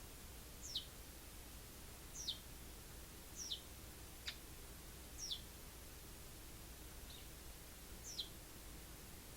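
Eurasian tree sparrow giving short, high chirps, each falling sharply in pitch, about six of them at uneven intervals.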